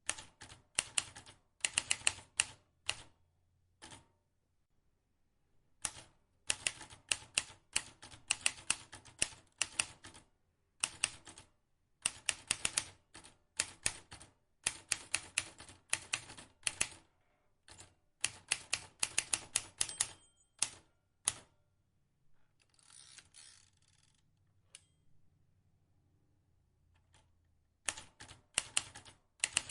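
Vintage typewriter being typed on: its keys strike in quick runs of several clicks a second, broken by short pauses. About two-thirds of the way through, a short rasping sound without clicks comes between the runs, followed by a quiet pause before the typing starts again near the end.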